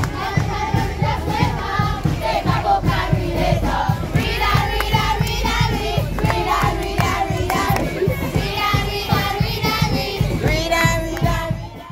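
Crowd of schoolchildren singing and chanting a cheer together, over a steady beat, fading out at the end.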